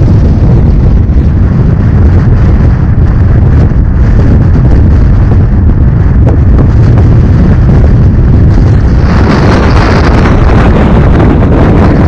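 Strong wind hitting the microphone: a loud, steady low rumble that completely drowns out everything else, with a harsher hiss joining it about nine seconds in.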